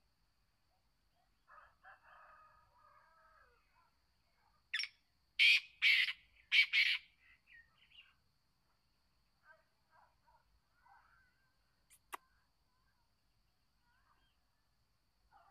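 Black francolin giving one call phrase: a short note and then three loud notes in quick succession, about five seconds in, with fainter chirps before and after it. A single sharp click near twelve seconds in.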